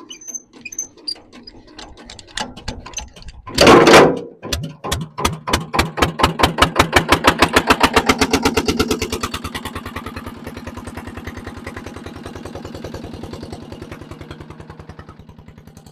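Small diesel dumper engine being hand-cranked, with irregular knocks, then catching about four seconds in with a loud burst and running on with evenly spaced firing beats. It starts on its new injector without ether and settles into a steadier, quieter idle after about ten seconds.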